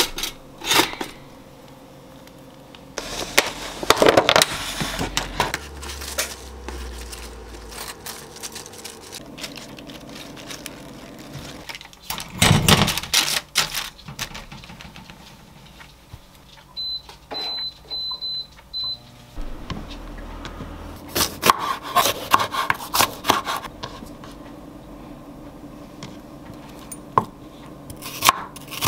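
Kitchen handling sounds: bread slices going into a pop-up toaster, then clattering of a metal mesh air fryer tray. About two-thirds through, an appliance gives a run of short electronic beeps. Near the end, a chef's knife taps through an onion onto a wooden cutting board.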